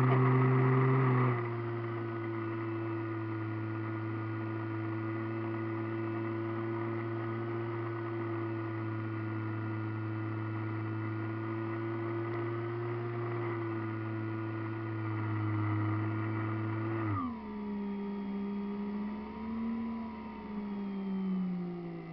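Model airplane's motor and propeller heard from the onboard camera: a steady whine that drops back in level about a second in as the throttle comes back, holds steady, then slides lower around three quarters of the way through, wavers and keeps falling in pitch as the power comes off.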